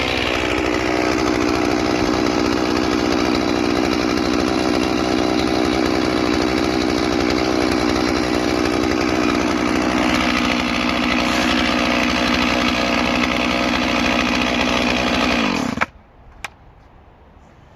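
Stihl MS 461 two-stroke chainsaw running at high revs while bucking logs, then cutting out abruptly near the end; a single sharp click follows.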